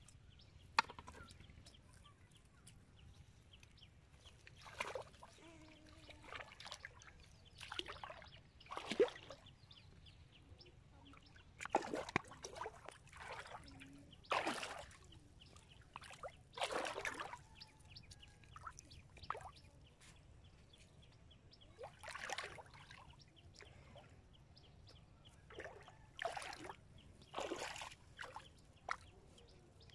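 Shallow river water splashing and sloshing in about a dozen short, irregular bursts.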